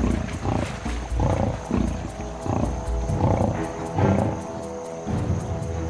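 Lionesses growling in short repeated bursts as they bring down a buffalo in shallow water, over a documentary music score with steady held notes.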